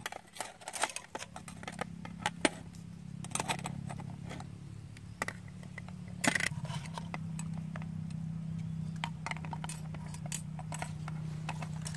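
Metal kitchen tongs clicking and scraping against cooked snail shells and a plate in quick, irregular taps, over a steady low hum.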